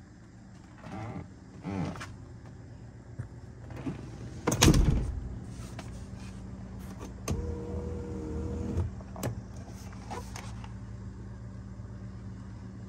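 Handling noises inside a car's cabin: soft rustles, then one loud knock. Later a small electric motor whirs steadily for about a second and a half, followed by a couple of sharp clicks, over a low steady hum.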